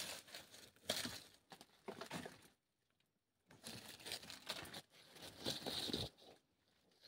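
Faint, irregular rustling and scraping: a person shifting and brushing against rock while wedged in a narrow crevice.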